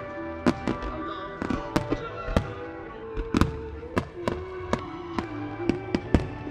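Aerial firework shells bursting in quick succession, more than a dozen sharp bangs spaced a fraction of a second apart, over music playing.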